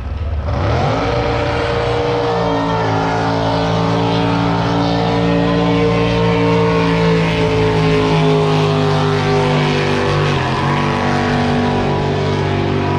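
Racing drag boat's engine at full throttle on a pass: the pitch climbs quickly about half a second in, then holds high and sinks slowly, with a brief dip around ten seconds in.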